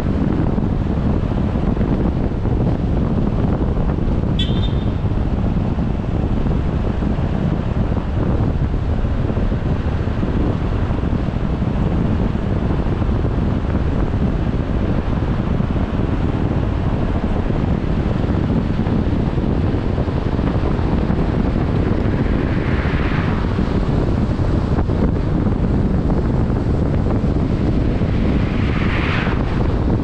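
Wind buffeting the microphone, a steady low rumble. A brief high chirp comes about four seconds in, and two vehicles swell up and fade as they pass near the end.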